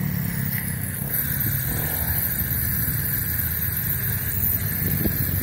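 Aerosol can of injector cleaner hissing steadily while its nozzle is held down, pushing cleaner through a hose into the fuel rail's Schrader valve to pressurise the rail. A low steady rumble runs underneath.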